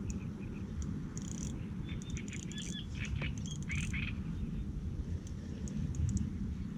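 Wind buffeting the microphone as a steady low rumble, with birds chirping in short bursts between about two and four seconds in.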